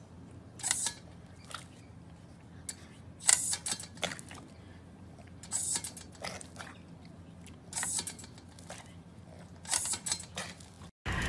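Several short hissing spurts of water from a step-on outdoor pet water fountain, coming irregularly a second or two apart as the pedal is pressed.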